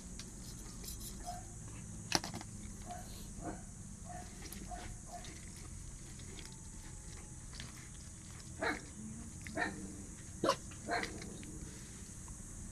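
A dog giving a few short barks, clustered near the end, with fainter short sounds earlier.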